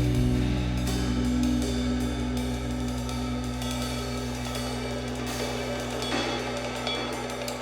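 Music with a drum kit, mostly cymbal and hi-hat hits, over held low notes, slowly fading in loudness.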